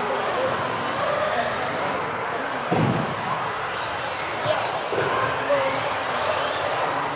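Several electric 1:10 off-road RC buggies racing: high motor whines rising and falling as they accelerate and brake, with tyre noise in an echoing hall. A dull thump about three seconds in.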